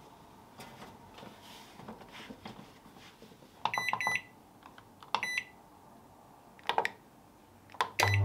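Microwave oven range control panel beeping as its keys are pressed: a quick double beep about three and a half seconds in, a single beep a second later, then sharper key clicks. Right at the end the oven starts heating with a low hum. Before the beeps, soft knocks of the food bag being set inside.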